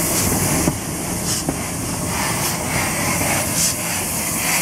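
USA-class 0-6-0 tank steam locomotive moving slowly past, steam hissing around its cylinders with a soft chuff about once a second.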